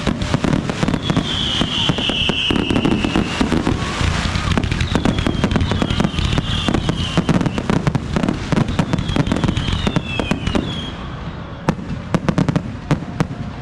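Fireworks finale: a dense, rapid barrage of bangs and crackling that thins out to a few separate loud bangs near the end.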